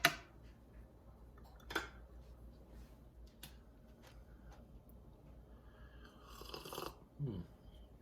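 A spoon clinks against the cup at the start, followed by small handling noises. About six and a half seconds in comes a slurping sip of coffee, then a brief low 'mm'.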